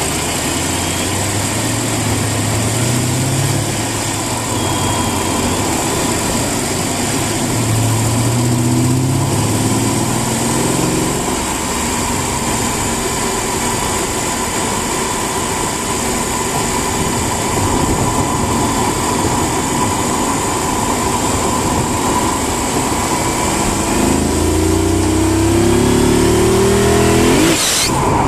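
Mercedes-Benz CLK550's V8 engine running with a steady rush of noise underneath, its pitch climbing in short steps three times. A thin, steady whine runs through it.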